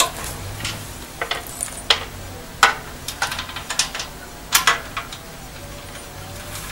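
Small loose metal parts (bolts, nuts and washers) clinking as they are picked through by hand: a string of separate sharp clinks about a second apart, two louder ones in the middle.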